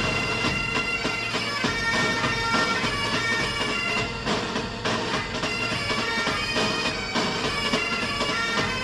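Bagpipe music: a pipe tune played over steady drone notes.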